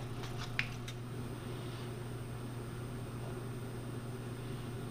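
Steady low hum of machine-shop background noise, with a few faint clicks in the first second as the polished steel rod is handled and taken out of the lathe chuck.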